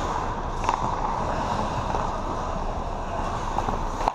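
Steady ice-rink noise of hockey skates on the ice, with a sharp clack about two thirds of a second in.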